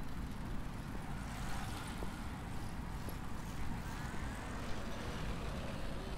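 Steady low rumble of outdoor ambience with no distinct events, and a few faint rising and falling tones about four seconds in.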